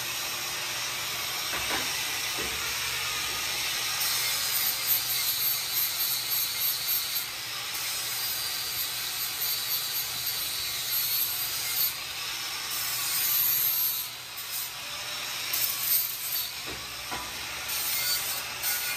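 Angle grinder working the steel of a car frame's front crossmember: a steady hiss with a high whine that wavers as the load on the disc changes, and crackling from about four seconds in.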